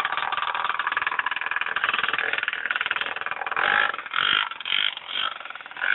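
Motorcycle engine running with a condom stretched over the exhaust pipe, the exhaust pulses giving a rapid, even fluttering. About three and a half seconds in it breaks into several irregular louder bursts.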